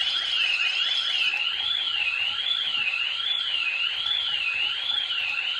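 Ring Alarm siren going off, set off by the door sensor on the refrigerator door. It is a loud, high electronic warble that sweeps up and down about once a second, over a faster chirping pattern, and cuts off right at the end.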